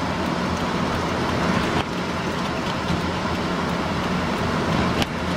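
Steady vehicle noise: a low engine hum under a loud, even hiss, with two brief clicks, one about two seconds in and one near the end.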